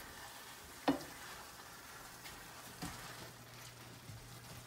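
Ground turkey frying faintly in a skillet as a silicone spatula stirs it, with one sharp tap of the spatula on the pan about a second in and a few lighter knocks after, over a steady low hum.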